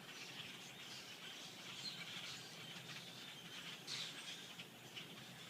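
A large flock of small songbirds chattering from a tree: a dense, continuous mass of overlapping high chirps, with one louder call about four seconds in.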